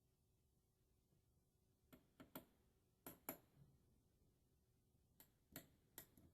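Faint, sharp metallic clicks from an LGA 1150 CPU socket's load plate and retention arm being lowered and latched over the processor. There are about five clicks two to three seconds in, then three more near the end.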